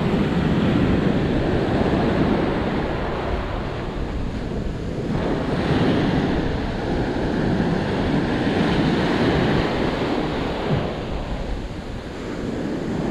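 Surf breaking and washing up a sandy beach, swelling and easing as each wave comes in. Gusty wind buffets the microphone with a low rumble.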